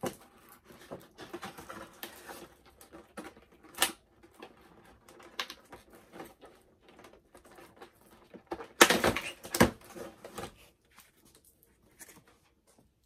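Plastic doll packaging and its cardboard box being handled: scattered rustling and small clicks, with a louder, denser rustle about nine seconds in.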